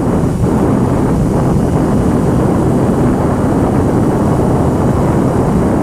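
Wind rumbling steadily on the microphone of a moving Honda CBR motorcycle, with the bike's running and road noise under it.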